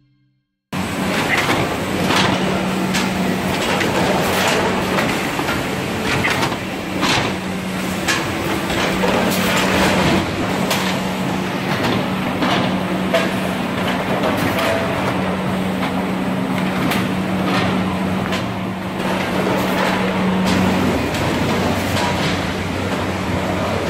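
GREEFA GeoSort tomato grading line running: a steady machine hum from the conveyors, with frequent knocks and clatter of plastic crates and tomatoes. It starts about a second in, and the hum drops away near the end.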